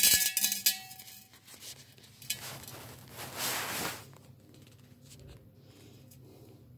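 Glass vase clinking and scraping on a granite countertop as it is handled: a clatter at the start, a click a little after two seconds, and a short scraping rustle about three seconds in, then quiet.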